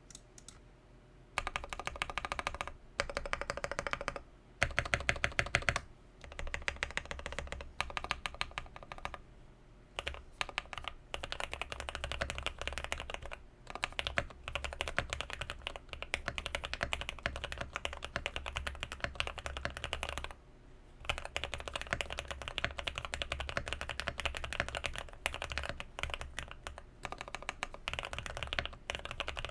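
Typing on a KBT68 mechanical keyboard fitted with Aqua King switches: rapid runs of keystrokes, broken by short pauses every few seconds.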